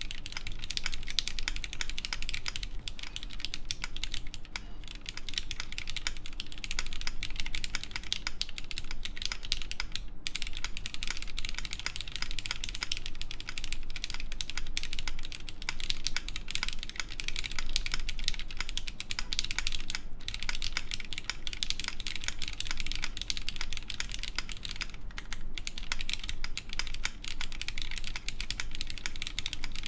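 Continuous fast typing on a mechanical keyboard with lubed Cherry MX Black linear switches and GMK keycaps on an aluminium plate, with no case foam: a dense run of key clacks with brief pauses about 10, 20 and 25 seconds in.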